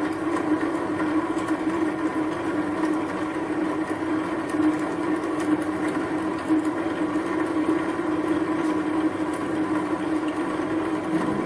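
Chinese CQ9325-type bench lathe running in bottom gear at about 140 RPM on its coarsest power feed, a steady hum of motor and gears, while a copper-brazed carbide tool takes a 1 mm cut at maximum load. The lathe is chugging along under a bit of duress, near its limit.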